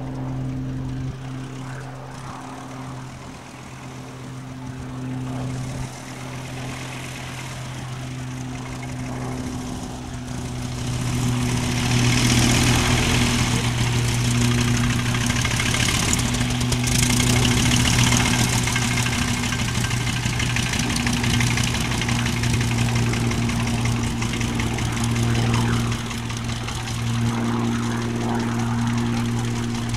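Hawker Tomtit biplane's Armstrong Siddeley Mongoose five-cylinder radial engine and propeller running at low power as the aircraft taxis on grass, a steady low drone that grows louder about a third of the way in.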